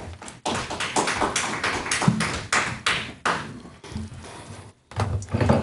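An irregular run of taps and knocks with rustling, from papers and objects being handled close to a desk microphone.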